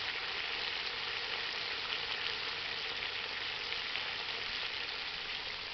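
Bombay duck (lote fish) curry in a thick masala, sizzling steadily in oil in a kadai: an even frying hiss.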